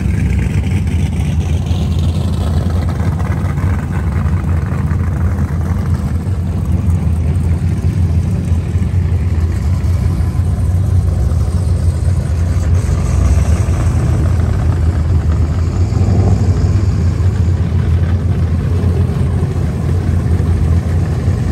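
A car engine running steadily and loudly, with a deep, even low-pitched drone.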